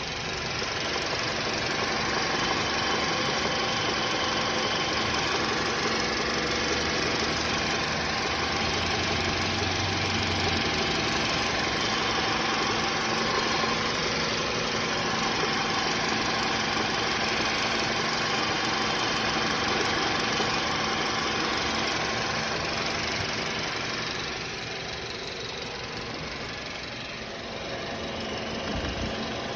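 Volkswagen Passat's 1.8 TSI turbocharged four-cylinder engine running steadily, with a weird noise from the passenger side mixed in. A low hum underneath stops about ten seconds in, and the sound gets somewhat quieter near the end.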